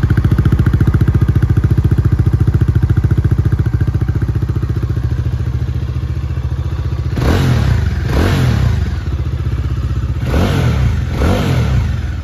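Bajaj Dominar 400's single-cylinder engine idling with an even pulse, then blipped on the throttle in two pairs of quick revs from about seven seconds in, dropping back to idle after each.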